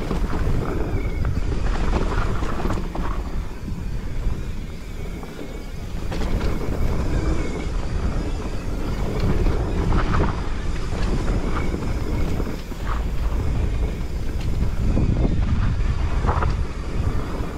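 Mountain bike descending a dirt singletrack at speed: tyres rolling over dirt and rocks with rattles and knocks from the bike, under wind buffeting the microphone.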